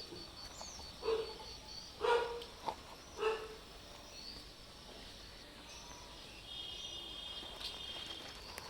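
Stray cats meowing, three short calls in the first three and a half seconds, as hungry strays begging for food. Faint high chirps follow.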